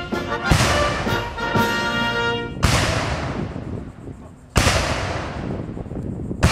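Ceremonial artillery gun salute: cannons firing blank rounds about every two seconds, four shots, each with a long echoing rumble, the last right at the end. A military band's brass music plays under the first two shots and breaks off after the second.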